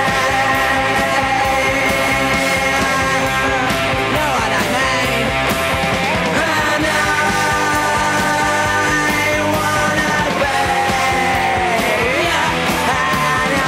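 Punk rock band playing loudly: distorted electric guitars hold long notes and bend them up and down over steady bass and drums.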